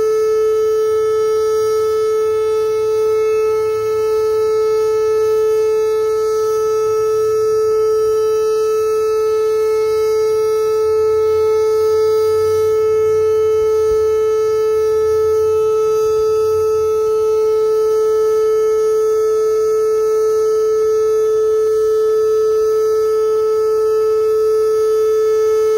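Pancake-style outdoor tornado siren sounding its monthly test as one steady tone, held at the same pitch without rising or falling.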